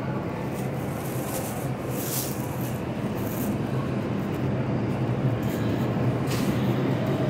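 Subway train rumble echoing in an underground station, a steady low drone that slowly grows louder as a train approaches, with a couple of brief rubbing hisses over it.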